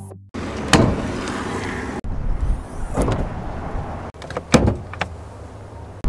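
Clunks and thuds of a pickup truck's doors and hood being worked: several sharp knocks, the loudest about four and a half seconds in, over steady outdoor noise that breaks off abruptly between short clips.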